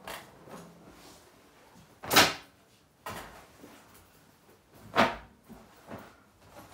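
A studded denim vest being handled: lifted, shaken out and laid on a table. Two loud, short handling noises come about two and five seconds in, with softer rustles and knocks between.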